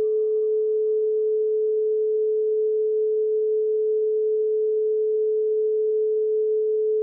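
Relaxation music: one steady pure tone held at an even level, a singing-bowl-like hum. Its faint higher overtones die away in the first second or two, leaving the single note.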